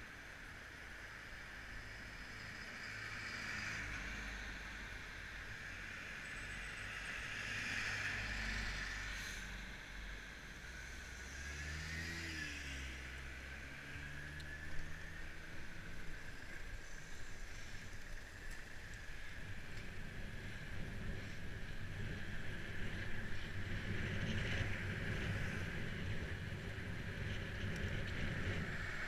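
Road traffic passing a moving bicycle: a few vehicles swell up and fade away in the first half, one with an engine note that bends in pitch as it goes by, then wind and ride rumble on the microphone grow louder as the bike picks up speed.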